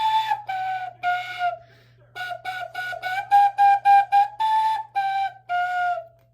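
Recorder played by a child: a simple tune of separate whistly notes. Three slow notes, a short pause, a quick run of about eight notes, then a few longer notes to close.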